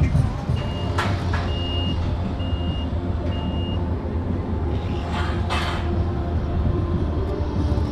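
A vehicle's reversing alarm beeping four times, evenly spaced, over the steady low hum of a running engine. A brief clatter sounds about a second in, and a short hiss comes a little after the middle.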